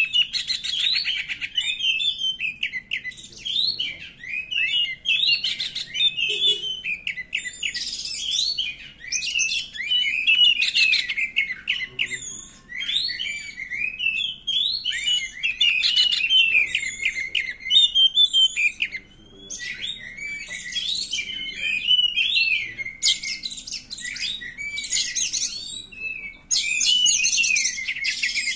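Oriental magpie-robin (kacer) in agitated, full song: a fast, almost unbroken run of varied whistled phrases, broken several times by harsh scratchy notes.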